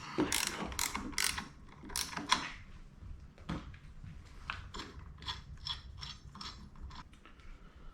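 Half-inch ratcheting wrench clicking as it tightens a mirror's acorn nut: a run of sharp clicks, uneven at first and settling to about three or four a second in the second half.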